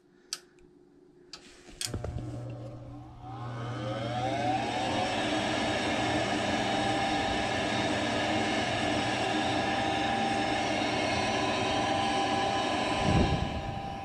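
A click, then the Goodman propane furnace's draft inducer motor starts with a hum and spins up in a rising whine over a few seconds before running steadily: the furnace starting its heating cycle after the tripped rollout limit switches were reset. Near the end the low hum stops with a short, louder thump.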